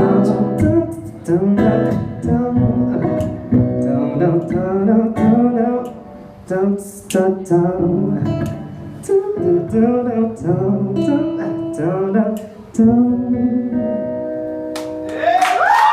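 Wordless singing, melismatic vocal runs, over plucked acoustic guitar chords as the song winds down; applause and cheering break in near the end.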